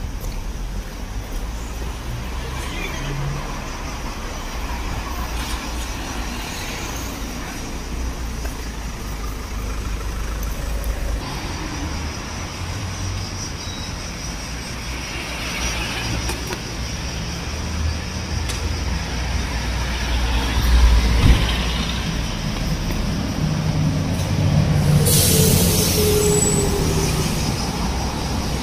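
Street traffic: cars driving past with a steady low engine rumble that swells as vehicles go by. Near the end there is a short, sharp hiss of air.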